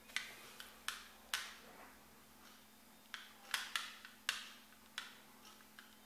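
Taiff Frizz hair crimping iron clamped shut and opened again on sections of hair, giving sharp, irregular plastic clicks, about ten in six seconds.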